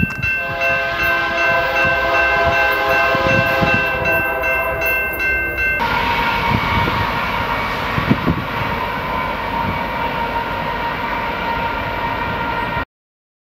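Diesel freight locomotive air horn sounding a long held chord of several notes over the rumble of the train, then, after a sudden change, another freight train running by with a steady horn-like tone over its noise, which cuts off near the end.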